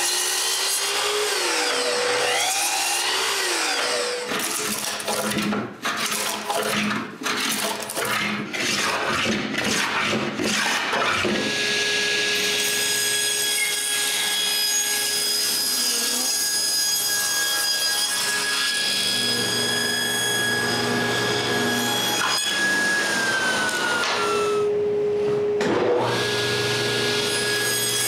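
Power saws cutting thin wood strips. First a sliding miter saw makes several short cuts, its motor starting and stopping. Then a table saw runs with a steady whine while cutting grooves for the plexiglass. About five seconds from the end the table saw winds down with a falling pitch, then starts again near the end.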